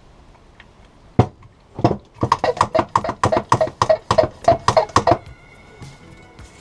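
Hand-pump pressure sprayer being pumped up: two single strokes, then a quick run of about a dozen even strokes, roughly four a second, each with a short squeaky whoosh of the plunger, stopping about five seconds in.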